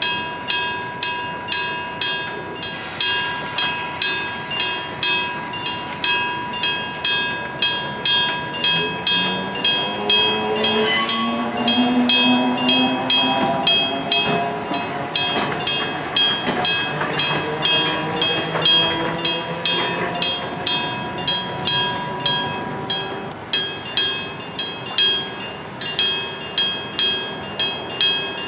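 Electric-bell level-crossing signal ringing with steady, evenly spaced strikes about twice a second. Through the middle a train passes, its running tones rising and then falling in pitch, with a brief sharp sound about eleven seconds in.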